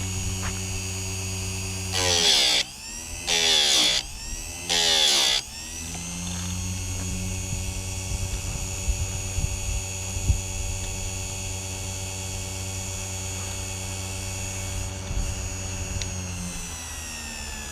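Chicago Electric electric chainsaw sharpener's grinding-wheel motor running steadily. Its wheel is brought down onto the chain's cutters three times in quick succession, each a loud grinding burst that briefly drags the motor's pitch down. Near the end the motor's pitch falls as it winds down.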